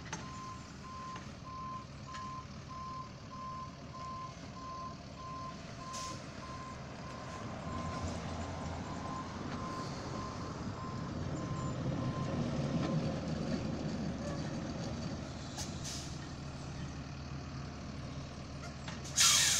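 Hi-rail maintenance truck backing slowly on the rails: its backup alarm beeps steadily and stops about two-thirds of the way through, over the running diesel engine, which grows louder in the middle. A short, loud hiss comes near the end.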